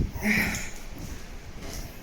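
A brief murmured voice sound about half a second in, then faint footsteps on a debris-strewn floor, fading off.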